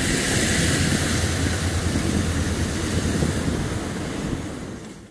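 Diesel suburban passenger train running at speed, heard from on board: a steady rumble of wheels on rails and the running train, fading out near the end.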